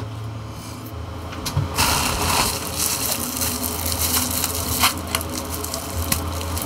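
Packaging being handled and unwrapped: crinkling and rustling from about two seconds in, with a few sharp clicks, over a steady low hum.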